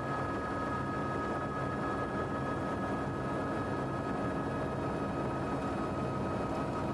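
Steady drone of a helicopter's engine and rotors heard from on board, with a steady high whine over it.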